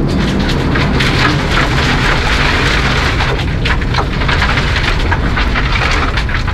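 Inside a 1997 Mercedes-Benz C180 rally car driving fast on gravel: the engine running hard under a dense hiss of loose gravel and stones pelting the underbody and wheel arches, many sharp hits, heaviest in the first half.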